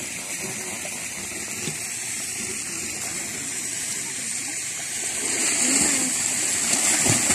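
Swimming-pool water splashing and lapping around a person in the water, with a steady wash that gets louder about five seconds in. Faint voices can be heard underneath.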